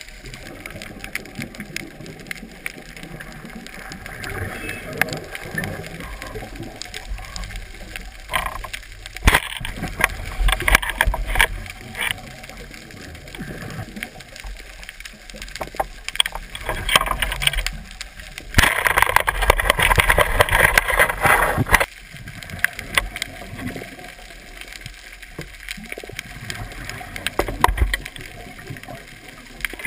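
Underwater sound picked up through a GoPro housing: a steady watery hiss with scattered clicks, broken by bursts of bubbling from a diver's exhaled breath. The loudest burst lasts about three seconds, a little past the middle.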